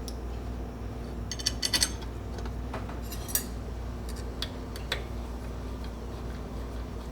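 Small metal pieces clinking and tapping against each other in a quick cluster over a steady low electrical hum, with a few more single clinks later. The hum dies away just after the end.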